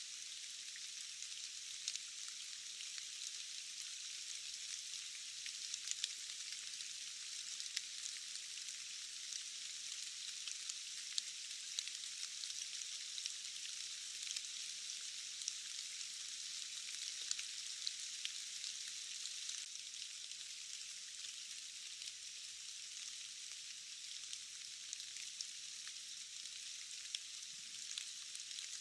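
Steady hiss of rainfall with many scattered sharp ticks of individual drops. The sound is thin and hissy, with almost nothing in the low range.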